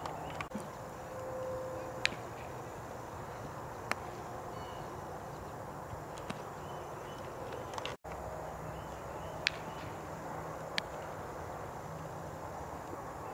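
Outdoor ambience at a baseball field during infield practice, with a few sharp cracks of bat and ball, spaced a couple of seconds apart. The sound drops out briefly about two-thirds of the way through.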